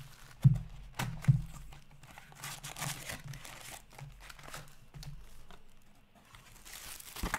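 Upper Deck Metal Universe hockey card box being opened by hand: wrapping and foil card packs crinkling and rustling as the stack of packs is pulled out of the box. Two heavy thumps about half a second and just over a second in as the box is handled, and a sharp knock near the end.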